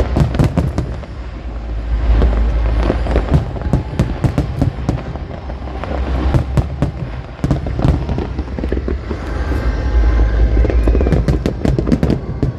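Aerial fireworks bursting: dense, rapid crackling cracks over deep booms that rumble on continuously.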